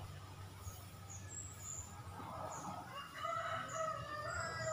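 A rooster crowing: one long call starting about two seconds in, with short high bird chirps throughout.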